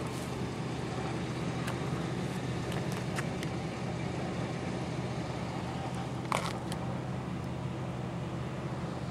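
Steady low mechanical hum of an engine running nearby, with scattered faint clicks and one brief sharp sound about six seconds in.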